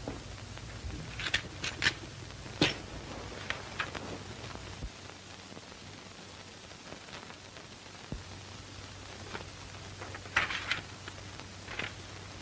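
Steady hiss of an old optical film soundtrack. Over it come a few short rustles and clicks of paper being handled, grouped near the start and again near the end.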